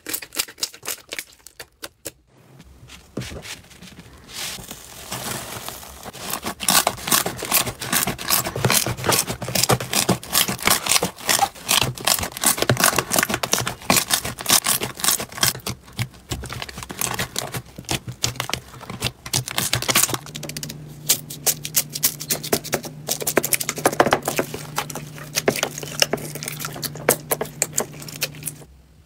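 Hands squeezing and kneading slime: a fast, dense run of wet clicks and sticky pops.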